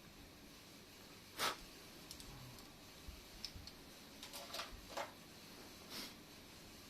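Small clicks and taps of the plastic case and parts of an engine-starter remote being handled while it is opened up: one sharp click about one and a half seconds in, a scatter of lighter ticks, then a few more clicks near the end.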